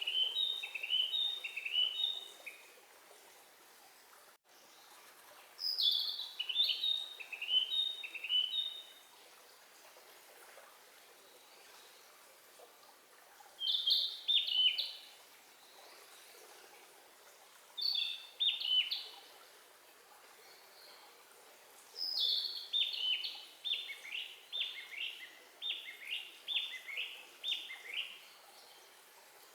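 A songbird singing in phrases of quick, high, falling notes, with pauses of a few seconds between them. Five phrases; the last is the longest, a run of about a dozen notes.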